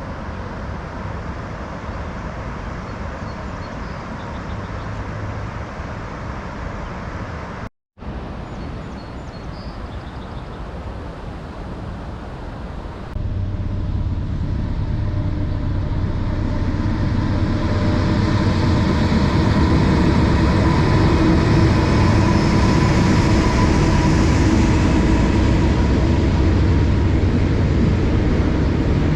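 Diesel freight train rumbling past, a steady heavy rumble of engines and wheels on rail that jumps louder about a third of the way through and stays loud to the end.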